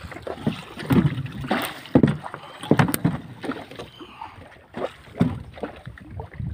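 Water slapping irregularly against the hull of a small boat at sea, with scattered knocks and clicks of gear handling and some wind on the microphone.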